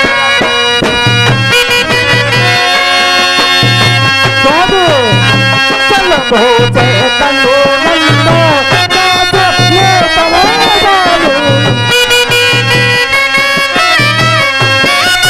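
Traditional Indian stage-drama music: sustained reedy chords over a steady low drum beat, with a wavering melody line that bends up and down twice, around a third and two-thirds of the way through.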